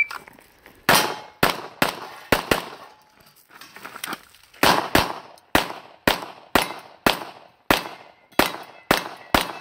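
Handgun shots in rapid strings: about five quick shots, a pause of about two seconds, then about ten more at a steady pace. Some hits ring faintly off steel targets.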